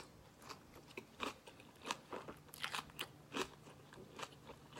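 A person chewing a big mouthful of crunchy food close to the microphone, with irregular crunches about two a second.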